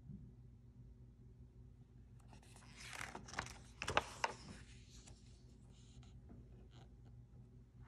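A picture-book page turned by hand: paper rustling for a few seconds, with a few sharp paper snaps in the middle, the loudest about four seconds in.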